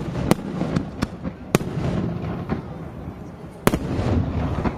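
Aerial firework shells bursting: three loud sharp bangs among smaller pops, the loudest a little before the end, over a continuous low rumble of reports.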